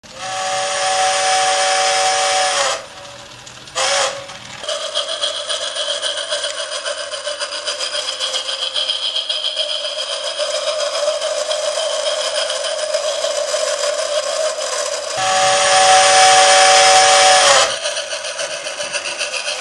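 Electronic steam-train sound effects from a model railway's sound control box: a multi-tone steam whistle blows for almost three seconds, toots briefly once more, and gives way to a steady, fast rhythmic running sound. About two-thirds of the way through the whistle sounds again, loudest of all, for a couple of seconds before the running sound resumes.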